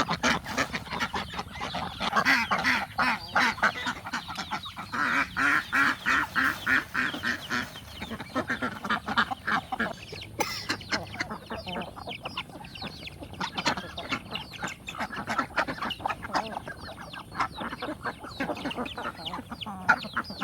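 A flock of domestic ducks quacking, many calls overlapping in a dense, continuous clamour that is loudest in the first few seconds.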